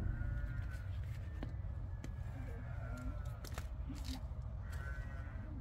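Low rumble of wind on the microphone outdoors, with a few faint, distant high calls near the start and again near the end, and occasional small clicks.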